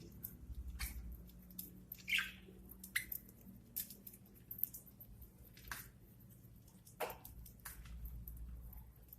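Budgerigars pecking and chewing at food: irregular small sharp clicks and cracks of their beaks, one to a few a second.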